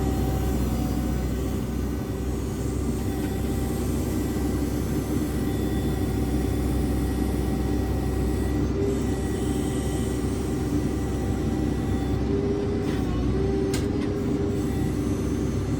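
Diesel engine of a JCB 3CX backhoe loader running steadily with a constant low drone.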